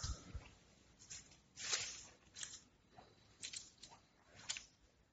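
A few faint, irregular short scuffs and taps over quiet room tone, with no machine hum.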